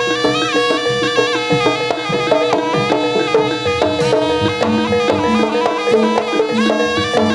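Live Javanese jaranan (kuda lumping) troupe music played loud through a sound system: a reedy wind-instrument melody that slides between notes, over a held drone and percussion.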